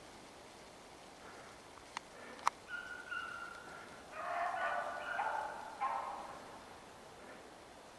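Hunting hounds baying in the distance while running a hare's trail: short bouts of held, wavering bawls, strongest in the second half. Two sharp clicks come about two seconds in.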